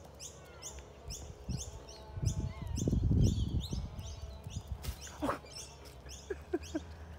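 A bird chirping repeatedly, a quick series of short high chirps about two or three a second that stops about five seconds in, over a low rumble that swells in the middle.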